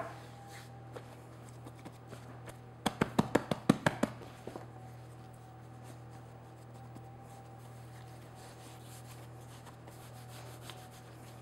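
Hands patting bread dough flat on a floured stone counter, a quick run of soft slaps about three seconds in, then quiet rubbing as the dough is folded over and rolled back and forth, over a faint steady hum.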